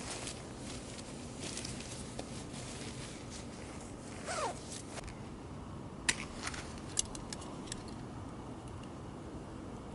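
Camping gear being handled: rustling with a few sharp clicks and a short squeak about four seconds in, over a steady low rumble.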